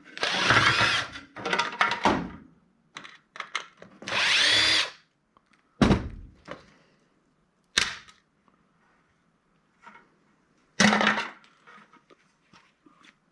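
A power drill runs in two short bursts, near the start and about four seconds in, taking apart a handheld retail scanner. Three sharp knocks follow, about two seconds apart, as metal and plastic parts are dropped onto the scrap pile.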